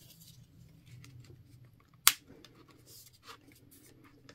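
Stiff printed Aida cross-stitch fabric rustling faintly as it is worked onto a wooden scroll-frame roller by hand, with small ticks and one sharp click about two seconds in.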